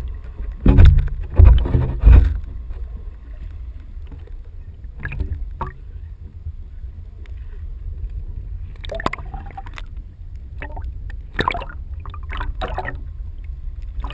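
Muffled sound from a camera held underwater: a steady low rumble of water, with three loud thuds in the first two seconds and scattered sharper knocks and crackles later.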